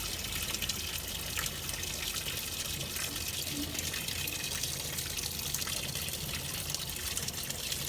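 Water running in a steady stream.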